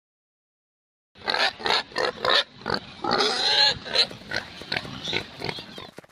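A pig oinking in a run of short calls starting about a second in, with one longer call about halfway through.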